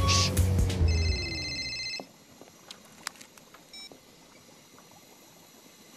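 Music with a low rumble and a slowly falling tone cuts off about two seconds in. Over its last second a steady electronic telephone tone sounds. Then it is quiet, with a few faint clicks and a short electronic beep.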